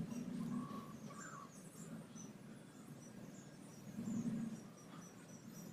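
Faint outdoor ambience: scattered short, high chirps over a low hum that swells briefly at the start and again about four seconds in, with a single faint rising note about a second in.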